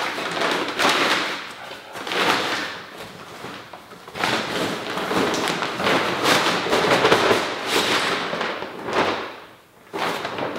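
Fabric carry bag rustling and swishing as a folded camping cot is pulled out of it, with knocks and rattles from the cot's folded metal frame.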